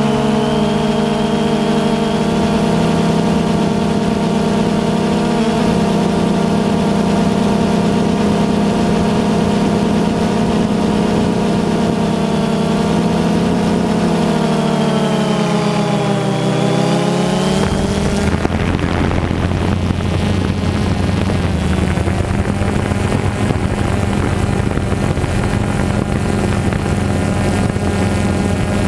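FPV drone's electric motors and propellers running steadily, heard close up from the camera on board. The pitch dips and rises again about two-thirds of the way through, then settles into a lower tone.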